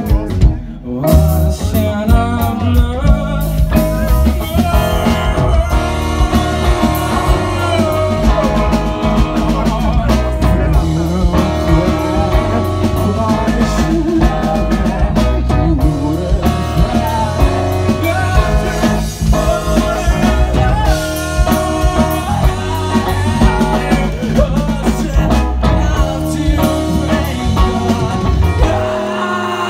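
Live rock band playing: electric guitar, bass guitar and drum kit, loud and steady. Near the end the bass and drums drop out.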